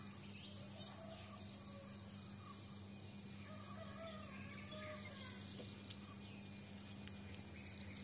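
Insects chirping in a steady, high, pulsing chorus, with birds calling in short wavering phrases in the middle and a low steady hum underneath.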